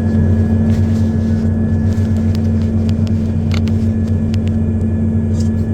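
Diesel engine of a tracked earthmoving machine running at a steady speed, with a few short sharp clicks over the hum.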